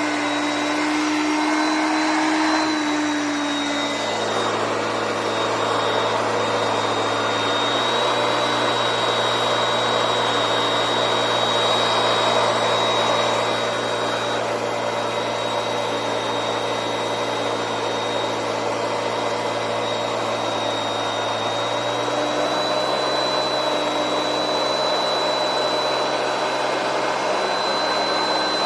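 Hoover Concept One Power Drive upright vacuum cleaner running steadily: a continuous airflow rush with a steady high motor whine, its lower hum changing pitch about three seconds in and again near the end.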